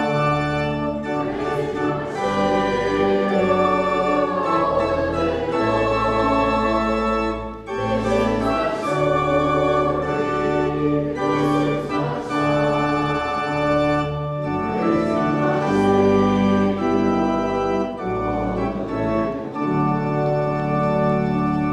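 Church organ playing held chords that change every second or two, with a brief break about seven and a half seconds in.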